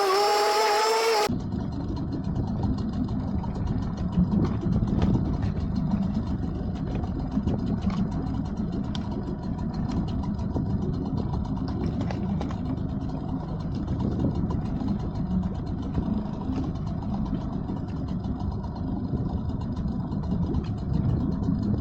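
Small outboard motor of about 5 or 6 horsepower running steadily as the skiff travels, a dense low rumble. In the first second, before an abrupt change, a few pitched wavering tones are heard instead.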